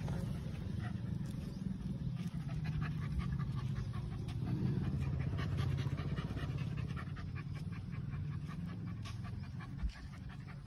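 Labrador puppy panting steadily.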